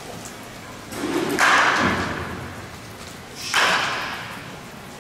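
Wooden baseball bat cracking against machine-pitched balls in an indoor batting cage: two hits about two seconds apart, each ringing on in the hall's echo for about a second.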